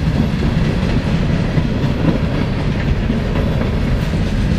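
Freight train of covered hopper cars rolling past: a steady noise of steel wheels on the rails.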